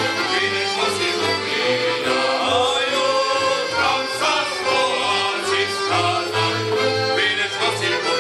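Live Slovak folk music from a band with a double bass, the bass pulsing in a steady rhythm under voices singing.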